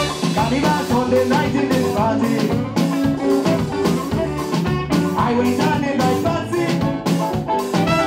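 Live band with drum kit, guitar, saxophone and keyboards playing an upbeat number with a steady beat.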